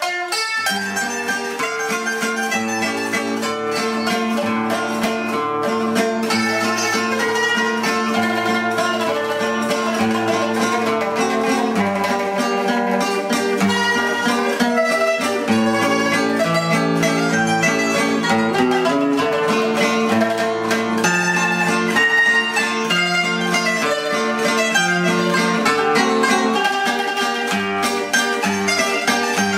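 Soundtrack music of quickly picked plucked string instruments over a moving bass line.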